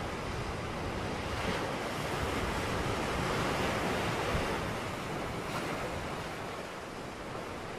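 Steady rushing noise that swells towards the middle and eases off again.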